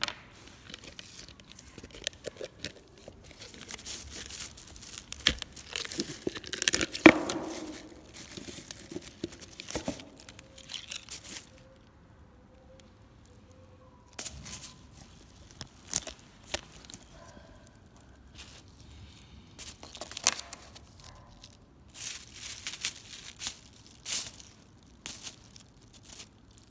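Clear plastic mixing cups flexed and squeezed by hand, crackling and giving sharp cracks as a cured epoxy layer inside breaks loose. The loudest crack comes about seven seconds in.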